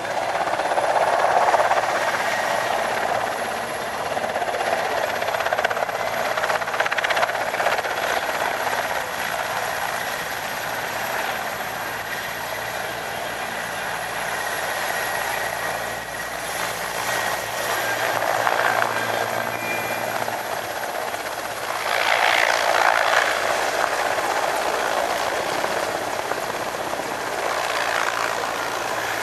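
Mil Mi-17 helicopter flying low overhead: the steady noise of its main rotor and twin turboshaft engines. The sound swells as it passes close, once near the start and again about three-quarters of the way through.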